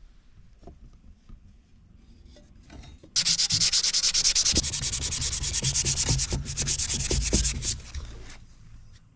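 Sanding on a metal blade: a loud rasping scrape that starts suddenly about three seconds in, runs for about four and a half seconds with a short break partway through, then stops.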